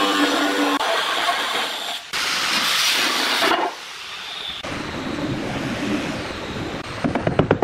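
Angle grinder cutting through a large ceramic tile, a steady harsh grinding that stops about three and a half seconds in. Near the end a rubber mallet starts tapping rapidly, about five knocks a second.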